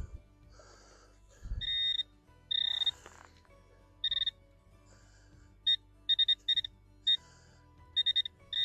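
Metal detector beeping over a buried metal target: a series of high electronic tones, a few long beeps first, then quick runs of short chirps. Two dull thuds come near the start.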